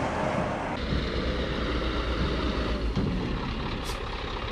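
A brief rush of wood chips pouring from a tipping trailer into a pit, then a heavy tipper truck's diesel engine running steadily.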